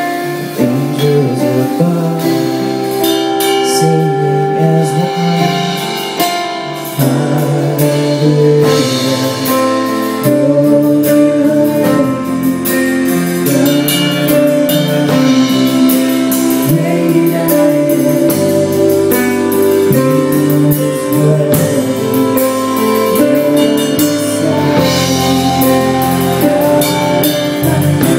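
Live band playing a song with singing, drum kit and guitar. The bass comes in about seven seconds in and the full band plays on.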